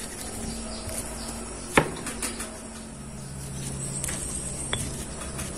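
Stone pestle crushing red chillies in a heavy stone mortar: soft grinding broken by a few sharp knocks of stone on stone, the loudest a little under two seconds in. Insects chirp steadily in the background.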